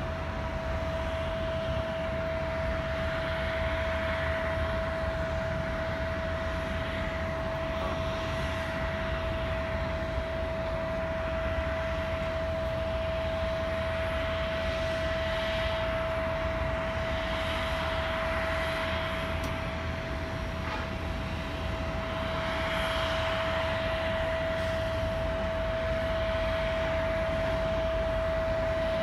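Korean Air airliner's jet noise, steady, with a high whine held at one pitch throughout. It grows slightly louder over the last few seconds.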